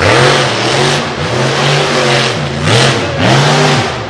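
1,500-horsepower Intruder 2.0 mega truck engine revving hard under full throttle, its pitch dipping and climbing back up about four times as the throttle is worked through the course, over a dense hiss.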